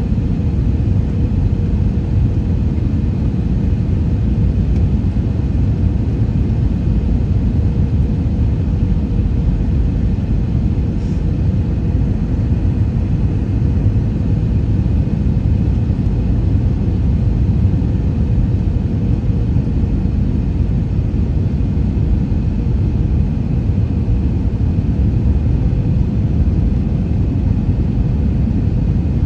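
Steady cabin noise inside an Airbus A321 on approach with its flaps extended: a low, even rumble of engines and rushing air, with a faint steady hum running through it.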